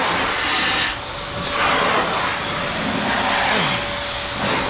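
Electric car-drying air blower running steadily: a loud, even rush of air with a thin high whine.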